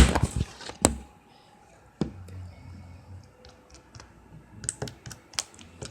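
Sharp plastic clicks and taps from a small food-colouring bottle being opened and handled: a loud click at the start, another just under a second later, and a few lighter ones near the end.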